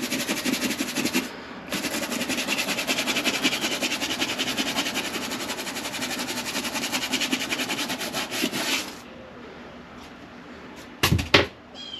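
Stiff-bristled scrub brush scrubbing wet, foaming vinyl boat-seat upholstery in rapid back-and-forth strokes, pausing briefly about a second in and stopping about nine seconds in. A couple of short sharp knocks near the end.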